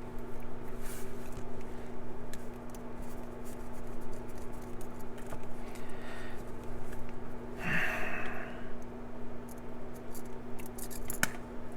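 Handling noise of a small padlock and small hand tools: scattered light clicks, a brief scrape about eight seconds in and a sharp metallic click near the end, over a steady low hum.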